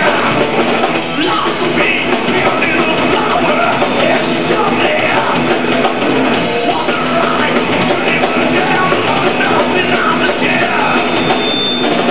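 Thrash metal band playing live: loud, dense distorted guitars, bass and drums with yelled vocals over them, continuous without a break.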